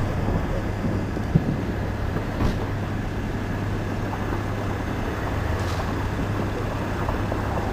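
Steady outdoor background noise with a constant low hum, likely wind buffeting the microphone, and one sharp click about a second and a half in.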